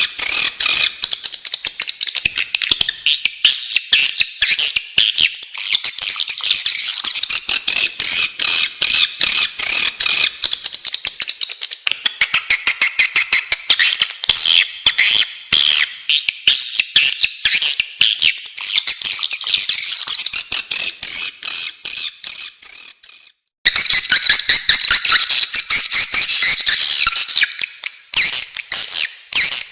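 Swiftlets chirping and twittering in dense, rapid trains of clicky calls, a recorded swiftlet lure call of the kind played to draw the birds into a nesting house. The calls break off briefly about twenty-three seconds in, then resume.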